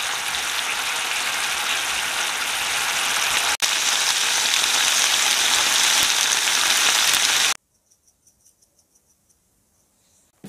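Chicken pieces in sauce sizzling and bubbling in a nonstick frying pan, a steady hiss with a brief break a little over three seconds in. It cuts off suddenly about three-quarters of the way through, leaving near silence with faint ticks.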